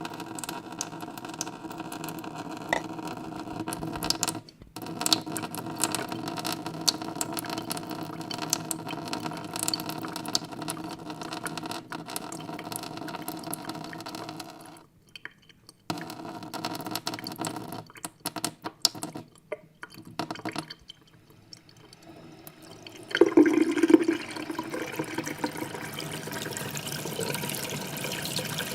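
Tap water running into a sink basin with a steady, ringing splash. It cuts out briefly a few times, thins to a broken trickle with drips for a few seconds, then flows harder again.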